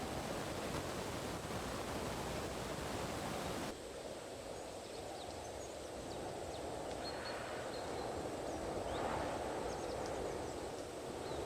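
Strong wind blowing steadily, a rushing noise that drops abruptly in level about four seconds in and then slowly builds again.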